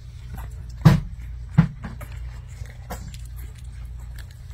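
Corgi puppies making two short, loud barks about a second in, less than a second apart, with faint scuffling clicks from the litter over a steady low hum.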